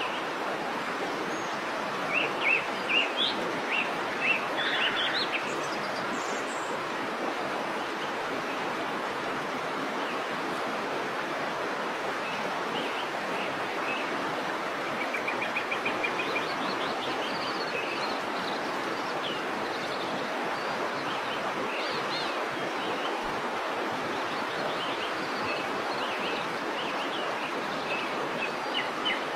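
Waterfall rushing steadily, with birds chirping over it in short calls and one quick trill partway through.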